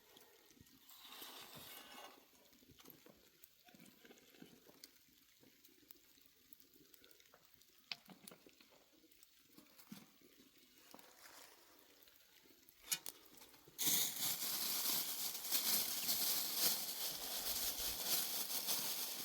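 A few faint small clicks, then about fourteen seconds in a steady rush of water noise starts suddenly and runs on.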